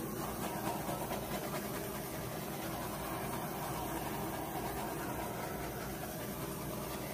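Handheld torch flame hissing steadily as it is swept over wet acrylic pour paint.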